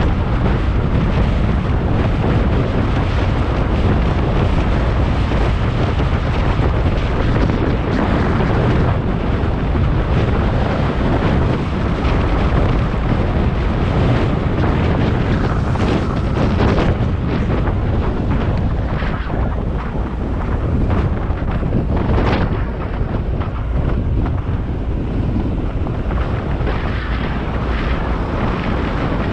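Wind buffeting the microphone: a loud, steady rumbling roar with irregular gusts.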